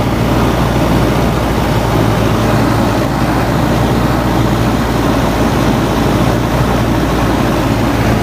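Single-engine light aircraft's engine and propeller running steadily on the ground, heard from inside the small cabin as a loud, even drone with a deep hum.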